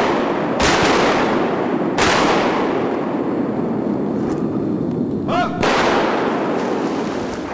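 Shotguns firing at ducks, about three shots a second or more apart, each followed by a long rolling echo through flooded timber.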